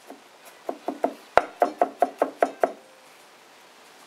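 Chef's knife chopping garlic on an end-grain wooden cutting board: a quick run of about a dozen knocks, roughly five a second, which stops about three seconds in.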